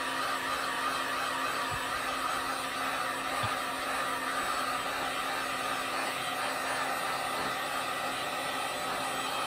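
Electric heat gun blowing steadily, heating PEX tubing to soften it for bending.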